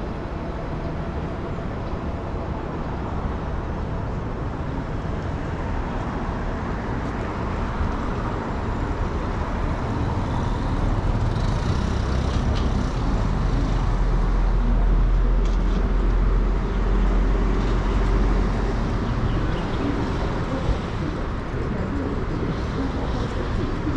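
City street traffic: a steady wash of road noise from passing vehicles. A deep low rumble swells from about ten seconds in, strongest around fifteen to nineteen seconds, as a vehicle passes close, then eases off.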